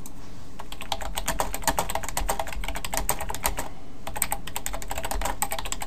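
Typing on a computer keyboard: quick runs of key clicks with a brief pause a little past halfway.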